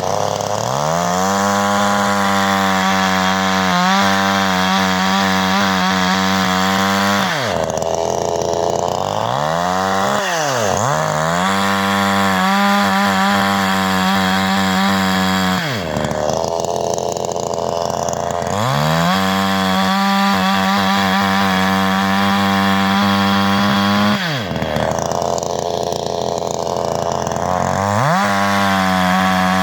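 CanFly 54.6 cc two-stroke chainsaw engine revving. It climbs to a high, steady full-throttle pitch and holds there for about five seconds at a time, three times over, dropping back toward idle in between. It revs up once more near the end.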